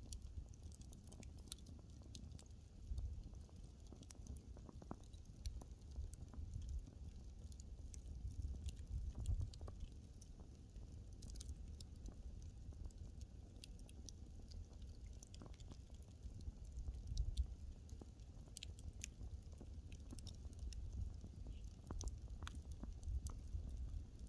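Burning wood in a fireplace crackling: irregular sharp pops and snaps over a low, steady rumble of the flames.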